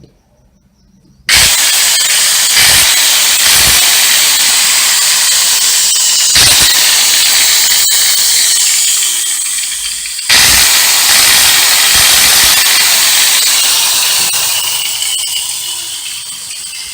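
Electric angle grinder switched on and running at full speed with a high whine. Its level dips briefly near the middle and picks straight back up, then it slowly winds down near the end. The armature is sparking heavily as it runs, which the repairer takes for a burnt armature.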